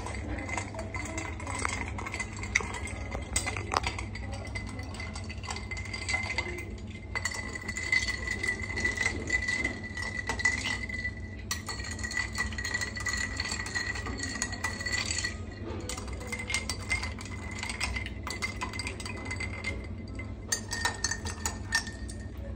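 Metal spoon stirring iced drinks in glasses and ceramic mugs, with many quick clinks against the glass, the mugs and the ice cubes.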